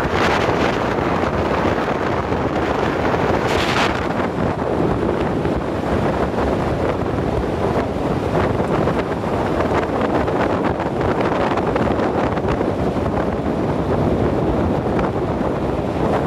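Wind buffeting the microphone from a moving car, over the steady rush of tyres on wet asphalt, with a brief louder hiss about three and a half seconds in.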